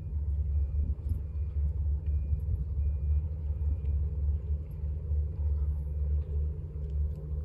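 A steady, fluttering low rumble, the kind of outdoor background of wind on the microphone or distant traffic.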